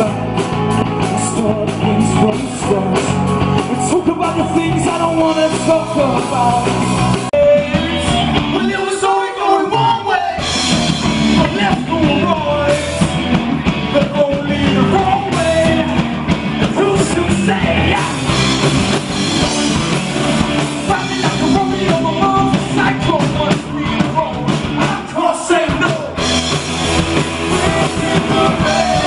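Live rock band playing a song loudly, with drums, guitar and singing at times; the bass end drops back for a few seconds about seven seconds in, then the full band returns.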